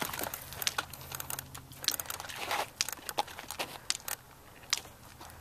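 Airsoft fire: an irregular run of sharp snaps and cracks as BBs are fired and strike the dirt around the player's position, thinning out near the end.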